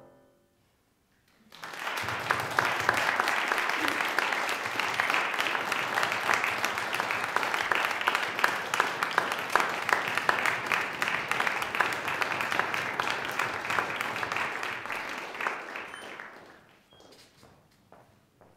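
Audience applauding in a hall, starting after a second and a half of silence and dying away after about fifteen seconds. Near the end a few footsteps sound on the wooden stage floor.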